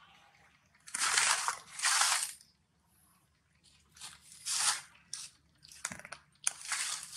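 Dry leaf litter crunching and rustling under moving monkeys, in three short pairs of crackly bursts, with a brief click just before the last pair.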